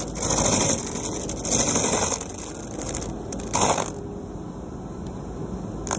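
Vermeer FT300 stump grinder's toothed cutting wheel chewing into a tree stump over the steady run of the machine. The grinding comes in three loud bites a second or so apart, then eases to a quieter run for the last couple of seconds.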